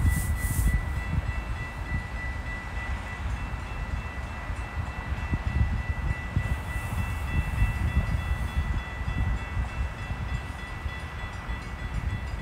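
Gusting wind buffeting the microphone in a low, uneven rumble, with steady high-pitched ringing tones held unbroken over it.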